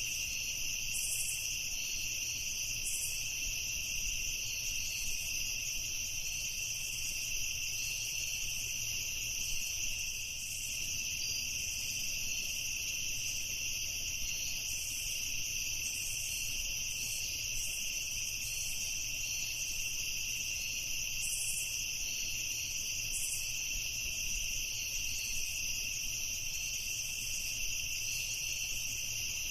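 Chorus of crickets chirping steadily, several pitches overlapping into one continuous high trill.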